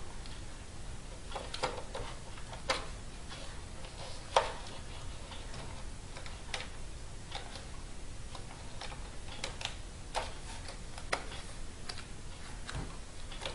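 Scattered small plastic clicks and taps, the loudest about four seconds in, as fingers work a keyboard's ribbon cable into its connector on a Dell Inspiron 1520 laptop, over a low steady hiss.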